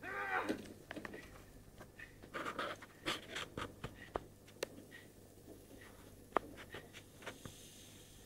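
Faint film soundtrack playing from a television across a small room: a short wavering voice-like cry at the start, then scattered sharp clicks and brief rustling hisses.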